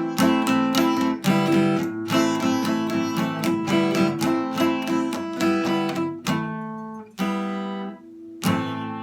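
Acoustic guitar strummed in a steady rhythm. About six seconds in, two chords are left to ring out, followed by a brief pause before the strumming picks up again.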